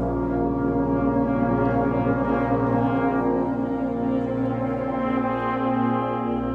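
Concert band playing long held chords, with brass prominent, including trombones and low brass.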